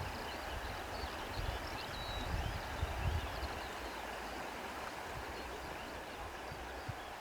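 Steady rush of flowing water, with faint short bird chirps above it and low rumbling bumps in the first few seconds.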